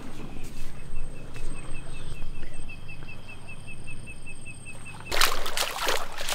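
Bare feet walking through soft mud among mangrove roots. About five seconds in, a louder splashing starts as a foot steps into shallow water.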